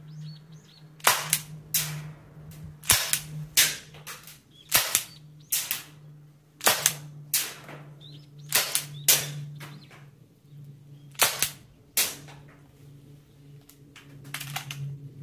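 Marushin M10 Military & Police gas revolver firing, a string of about eighteen sharp cracks in quick groups of two or three, then a few lighter clicks near the end.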